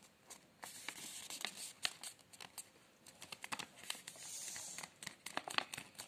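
A sheet of origami paper being handled and folded by hand: crisp crackles and rustles as it is pressed and creased, with a longer brushing rustle about four seconds in.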